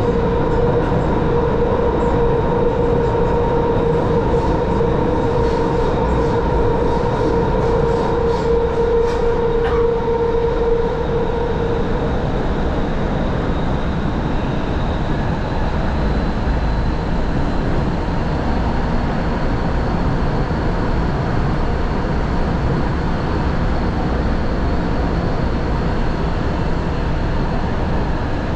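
Subway train running at speed, heard from inside the carriage as a steady loud rumble of wheels and running gear, with a steady whine that fades out about twelve seconds in.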